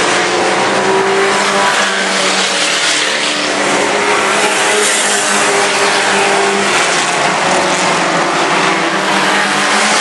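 Mini truck class race pickups running hard around the oval. Their engines make a steady, loud drone, with the pitch shifting as they rev and lift through the turns.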